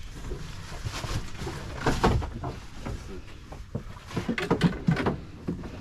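Irregular knocks and thumps, with a cluster about two seconds in and more between four and five seconds, over faint background noise: handling noise on a fishing boat's deck.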